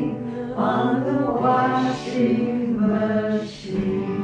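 Woman singing a folk song live, holding long notes, with acoustic guitar accompaniment.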